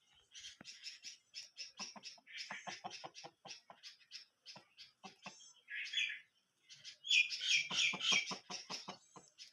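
Chicks peeping: a rapid run of short, high chirps from several birds at once, densest and loudest near the end.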